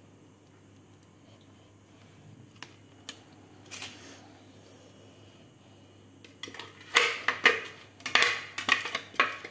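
Clear plastic blender jug knocking and scraping against a plastic basin as marinade is poured out of it onto raw pork belly: a few faint knocks at first, then from about seven seconds in a quick run of loud clattering knocks.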